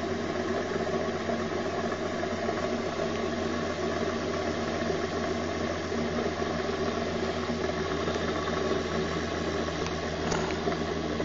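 Bedini SSG pulse motor running, its bike wheel spinning fast past three pulsed coils: a steady hum made of several even tones over a light whir.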